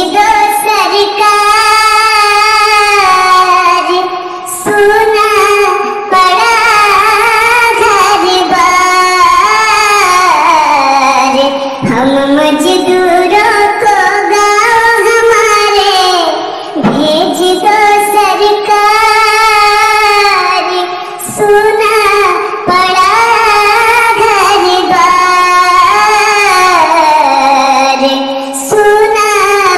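A solo voice singing a slow, ornamented melody with long, wavering held notes, breaking off briefly every few seconds between phrases.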